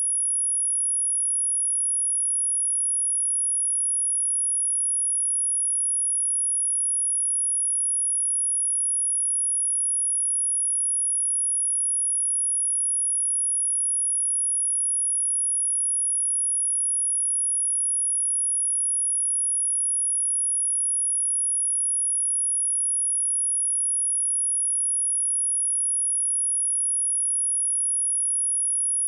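A steady, high-pitched 10331 Hz pure sine tone held at a constant level: a speaker test tone.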